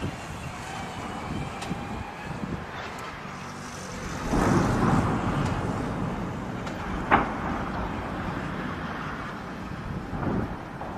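Distant explosion from Uragan rocket shelling: a deep rumbling blast about four seconds in that fades over a few seconds, over steady wind noise on the microphone. A single sharp crack follows about three seconds later.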